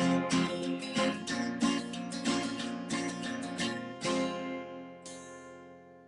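Acoustic guitar strummed through the closing bars of a song, ending on a final chord about four seconds in that rings out and fades away.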